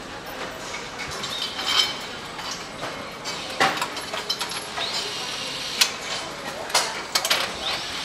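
Car assembly-line noise: scattered metal clinks and tool clicks over a steady factory background, with two short rising power-tool whines, one about five seconds in and one near the end.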